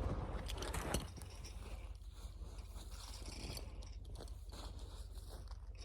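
Faint crunching and scraping while a steel winch cable is pulled out by hand, with a slightly louder scrape about a second in.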